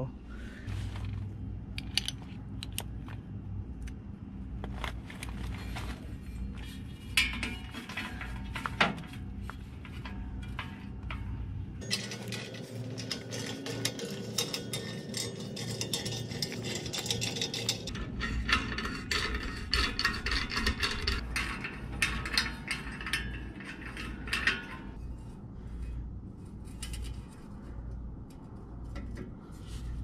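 Scattered metallic clinks and knocks of a steel exhaust tip and hand tools being handled while the stock exhaust tip is unbolted and the new one fitted.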